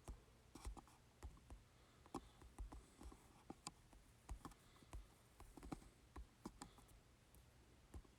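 Faint, irregular clicking of typing on a computer keyboard, stopping shortly before the end.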